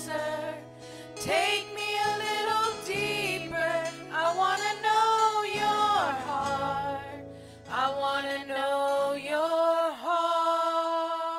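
Women's voices singing a slow worship song over sustained instrumental backing. About nine seconds in, the backing drops out and one long sung note is held on its own.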